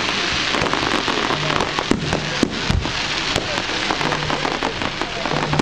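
Aerial fireworks bursting overhead: a dense, continuous crackle broken by many sharp bangs.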